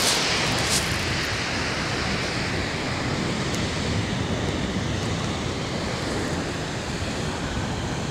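Rough surf breaking on the shingle of Chesil Beach, with strong wind buffeting the microphone: a steady rushing noise that eases slightly toward the end.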